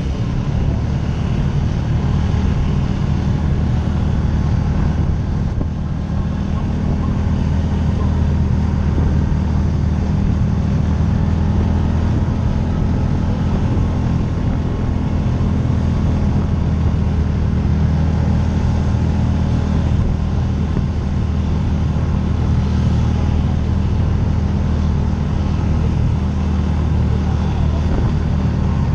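Side-by-side UTV engine running under steady load while climbing, a constant low drone that barely changes over the whole stretch.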